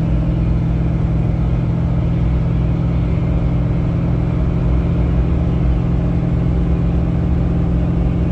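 Duramax turbodiesel V8 pulling under a heavy towing load at steady revs, heard from inside the pickup's cab as a constant drone mixed with road noise.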